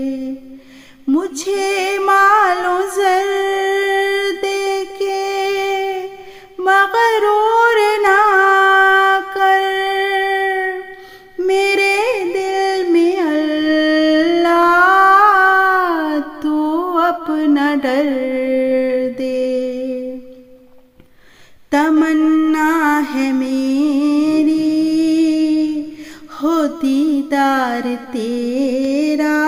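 A woman singing a naat solo, with no instruments. The voice holds long, wavering notes in phrases of several seconds, with short pauses for breath between them.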